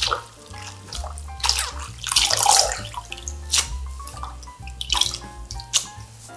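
Hands swishing, rubbing and squeezing soaked wakame seaweed in a glass bowl of water: splashing and dripping, loudest in the middle, with a few short sharp splashes later. Soft background music plays underneath.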